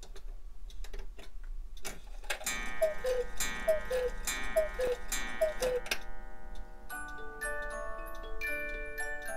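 Black Forest cuckoo clock striking the hour. Ticking at first, then four falling two-note cuckoo calls from the bellows whistles, each with a clack and ringing. About seven seconds in, the clock's music box starts playing a tune.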